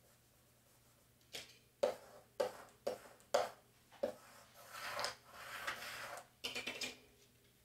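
Hands tapping and pressing transfer tape down onto a chalkboard, a few sharp taps. Then a plastic scraper rubs across the tape for about two seconds, burnishing the vinyl flat so that no bubbles are left, and a few quick clicks follow near the end.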